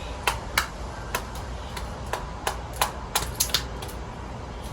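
A hand-forged knife chopping, its blade knocking sharply on a hard surface in a quick, uneven run of strokes, about three a second.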